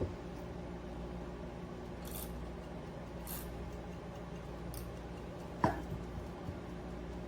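Microwave oven running with a steady hum, with a few brief faint hisses and one sharp click about five and a half seconds in.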